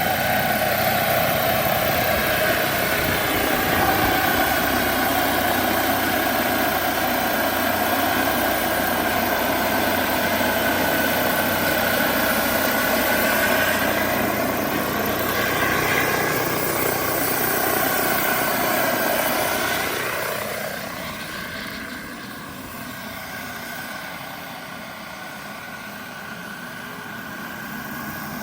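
Radio-controlled scale Bell 212 helicopter powered by a Jetcat PHT-3 XL model gas turbine, running with a steady turbine whine and rotor noise. Its pitch sweeps up and down around the middle; about two-thirds of the way through it turns quieter, then builds again near the end.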